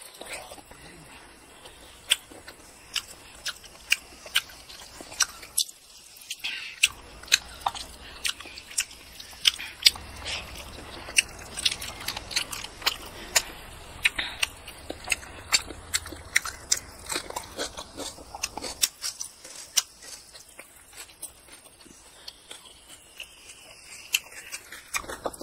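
Close-miked chewing and biting of a mouthful of curried chicken heads and rice, with many sharp, irregular crunching clicks.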